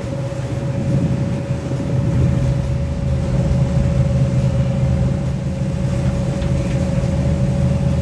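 Passenger ferry's engine droning steadily on board: a low hum with a thin, steady whine above it.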